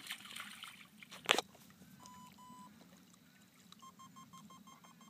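A whippet splashes once in shallow water, sharp and brief, about a second in. Two short electronic beeps follow, then near the end a fast, even string of beeps, about five a second.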